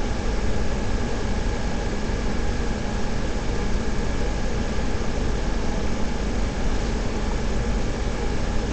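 Steady hiss with a low hum underneath, unchanging throughout, with no voices.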